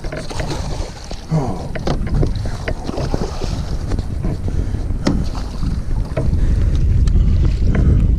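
Wind buffeting the camera microphone with a heavy low rumble that builds toward the end, over scattered clicks and knocks from the fishing gear and the small boat's hull.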